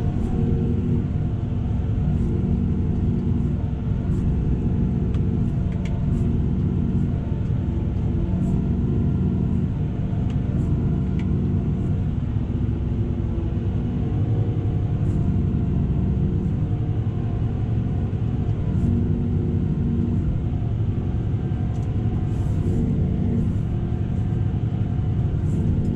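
Tractor engine running steadily under load while pulling a tillage implement across the field, a constant low rumble that holds the same pitch throughout.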